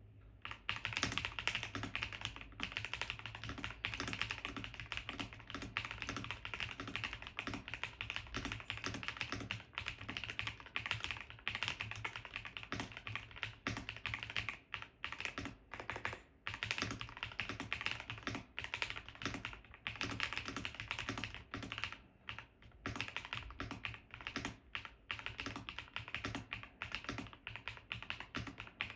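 Fast, continuous typing on an Epomaker Cypher 96, a gasket-mounted mechanical keyboard with a polycarbonate plate, dampening foam and doubleshot PBT keycaps. It starts about half a second in as a dense run of irregular key clacks.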